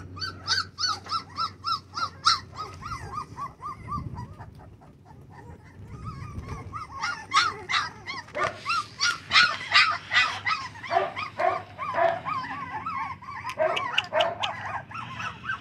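Four-week-old American bully puppies whining and yipping in short, high, repeated cries, about three a second at first. After a brief lull a few seconds in, more cries overlap densely.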